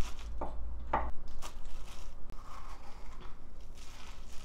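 Hands tossing and pressing chopped napa cabbage and onion in a plastic basin: leaves rustling and crunching, with a few sharp crisp snaps in the first second and a half.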